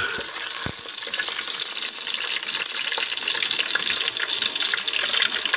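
Sliced garlic sizzling in hot cooking oil in a metal pot, a steady hiss with small pops, growing slightly louder, while a metal spoon stirs it.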